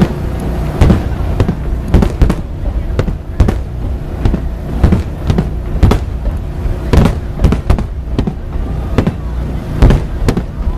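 Aerial fireworks shells bursting in quick succession: loud, sharp bangs about twice a second over a continuous low rumble of further bursts.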